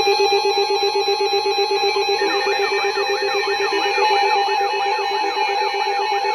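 Several NOAA weather alert radios sounding their alarms at once, set off by an incoming severe thunderstorm warning. A rapid pulsing beep plays over a steady tone, and from about two seconds in a warbling siren-like sweep repeats about twice a second. The pulsing beep stops near the end.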